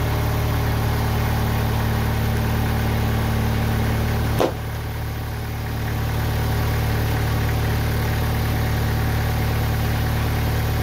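TimberKing 2020 portable sawmill's engine running steadily. A single sharp knock comes about four and a half seconds in, after which the engine sound dips and then climbs back.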